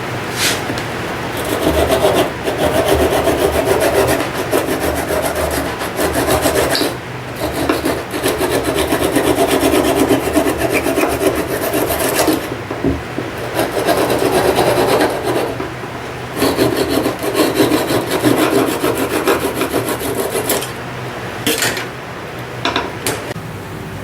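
Wood being rubbed down by hand with an abrasive in quick back-and-forth strokes, in several bouts of a few seconds each with short pauses between. A few light clicks come near the end.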